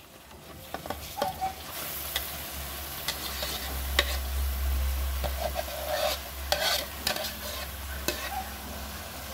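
Shredded young coconut being scraped from a bowl with a spoon into a pan of hot caramelizing muscovado-sugar syrup, with the spoon clicking and scraping against the bowl and pan. A sizzle grows about two seconds in as the coconut goes into the syrup.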